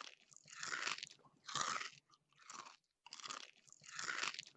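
Someone chewing crunchy chips, about six crunches in a row at a slow, even chewing pace.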